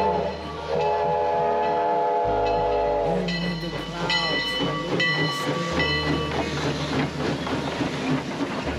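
Steam locomotive sounding its whistle, a steady chord held for a second or two, then the train running with rail clatter.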